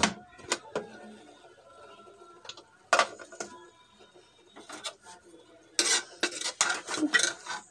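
An aluminium pressure cooker being opened: light clicks as the lid is worked loose, and one sharp metal clank about three seconds in. Near the end, a spoon scrapes and clinks repeatedly against the inside of the aluminium pot as the cooked contents are stirred.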